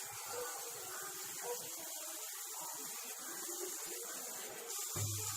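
Chopped onions sizzling in hot oil in a pan, a steady frying hiss. About five seconds in, a louder low hum joins it.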